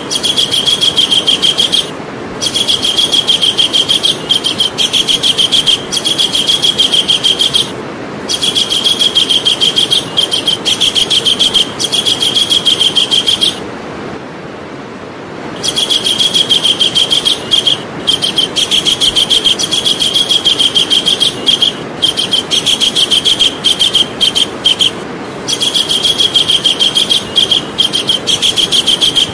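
Javan kingfisher calling: long runs of rapid, high, evenly repeated notes broken by short pauses, with a longer pause about halfway through, over a steady background hiss.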